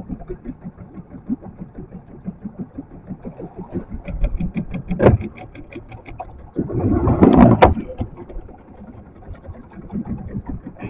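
A small engine running with a fast, even pulsing. A sharp knock comes about five seconds in, then a loud rushing burst of about a second.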